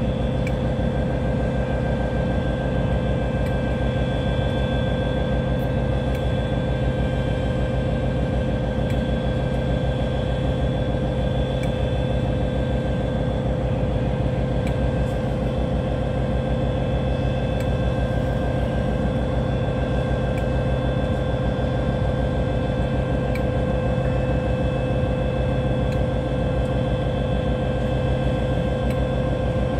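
DRS Class 57 diesel locomotive's EMD 645 V12 two-stroke engine idling steadily while the locomotive stands, a low rumble with a steady whine on top.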